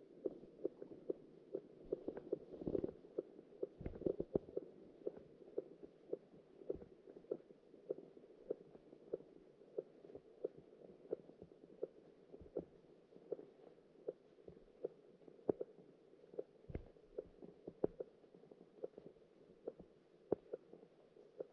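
Muffled underwater ticking, about three short ticks a second with a few stronger knocks, picked up by a camera under the ice while an ice-fishing jig is worked on its line in front of it.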